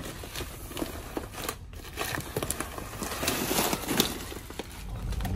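Plastic dog-food bags crinkling and rustling irregularly as they are pulled from a store shelf and handled.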